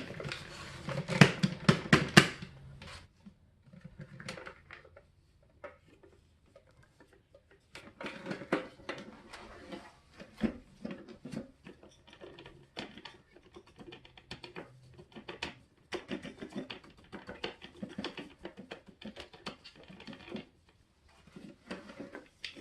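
Knocking and tapping on a Hoover WindTunnel 2 vacuum's plastic dust bin as it is shaken out to empty dog hair and dust. A quick run of sharp knocks comes in the first two seconds, followed by scattered clicks and rustling of debris.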